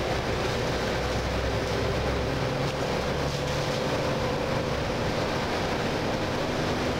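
Steady drone of a bus's engine and tyres heard from inside the bus, with a faint steady whine.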